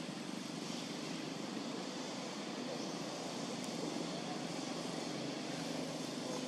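Steady outdoor background noise, an even, constant hum with no distinct events standing out.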